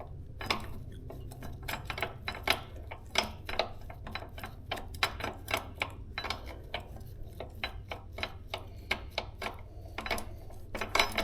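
Irregular light metallic clicks and scrapes, a few a second, from an e-bike axle nut being turned off by hand on threads that are kind of jacked up.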